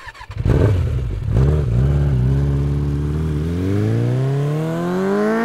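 Engine revving as a logo-intro sound effect: a few quick blips in the first second and a half, then a steady run whose pitch climbs smoothly from about three and a half seconds in.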